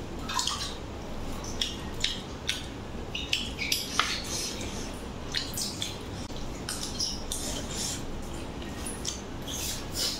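Eating by hand: chewing and lip smacks with fingers scraping and tapping a stainless steel plate, heard as many short, irregular clicks.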